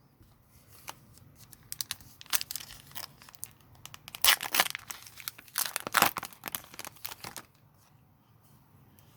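Foil wrapper of a Pokémon card booster pack being torn open and crinkled, in irregular rustling bursts over several seconds, loudest about four and six seconds in.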